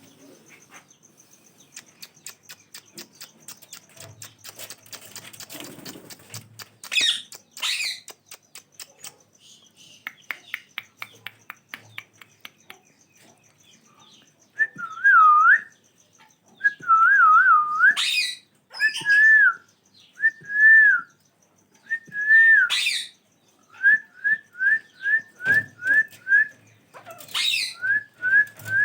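Ringneck parrots calling: soft clicks and a few short harsh calls at first, then from about halfway loud clear whistles that waver up and down in pitch, broken by shrill screeches. Near the end come quick runs of short rising whistle notes, several a second.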